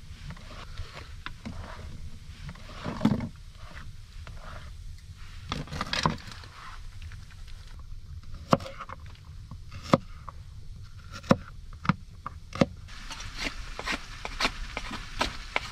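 Hands handling food and utensils, with a couple of louder bumps. Then a knife strikes a plastic cutting board sharply about five times, roughly a second apart, as garlic cloves are cut. Near the end comes a quicker run of clicks and scrapes.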